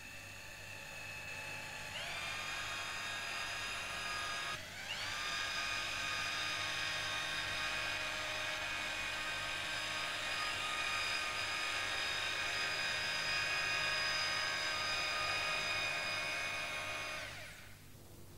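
Electric motor of a Betamate two-part urethane applicator gun whining steadily as it drives the pistons and mixer, pushing out a bead of windscreen adhesive. It steps up in pitch about two seconds in, dips briefly and climbs back near five seconds, and stops about a second before the end.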